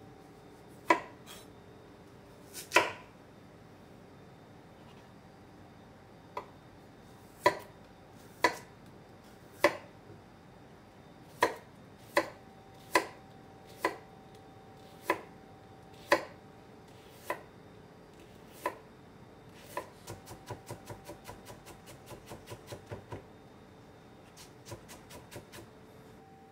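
Chef's knife cutting a carrot on a wooden cutting board: single sharp chops about a second apart as it is sliced into rounds, then near the end a quick run of lighter cuts, several a second, as the slices are cut into thin strips.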